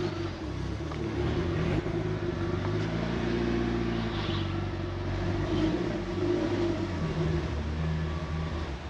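Mitsubishi Lancer Evolution IX's turbocharged four-cylinder engine running at low revs, then shutting off abruptly near the end. It is being kept running after the key is off by a turbo timer.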